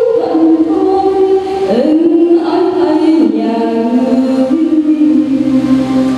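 A choir singing a slow hymn in long held notes that move from one pitch to the next about once a second.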